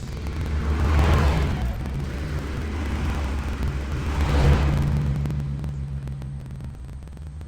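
Tractor engine running steadily while working with a box blade, with two louder surges, about a second in and again past the middle.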